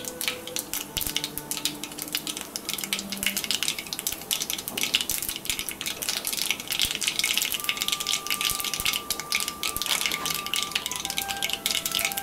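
Mustard seeds spluttering and crackling in hot oil in a pan, a dense run of rapid small pops that grows busier about four seconds in. It is the tempering stage: the popping is the sign that the oil is hot enough and the seeds are cooking.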